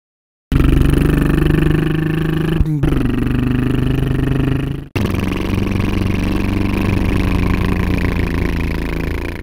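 Monster truck engine running loudly and steadily, starting about half a second in. Its pitch drops briefly just under three seconds in, and it cuts out for an instant near five seconds before running on.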